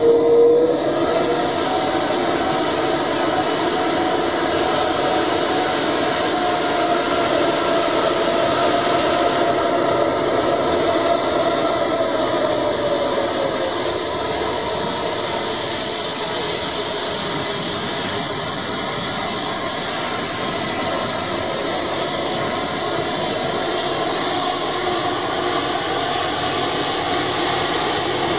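Rolls-Royce Trent 700 turbofans of an Airbus A330-300 running at taxi power as the jet rolls slowly past, a steady jet roar with an engine whine that rises just after the start and then slowly falls over the following dozen seconds.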